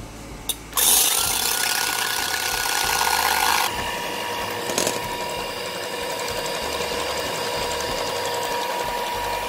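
Electric hand mixer running, its beaters whipping egg whites in a stainless steel bowl to a foam for meringue. The motor starts about a second in with a rising whine, then about four seconds in settles to a slightly quieter, lower steady hum.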